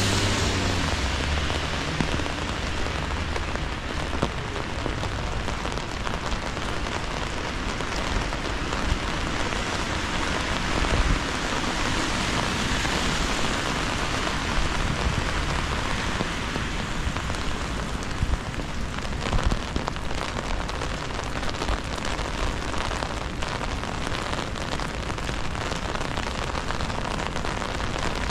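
Steady rain pattering on an umbrella held overhead, a dense hiss dotted with many small drop ticks. A passing vehicle's engine dies away in the first couple of seconds.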